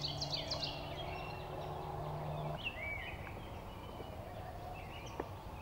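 A wild turkey gobbling in the distance, a rapid rattling call, with songbirds calling over it.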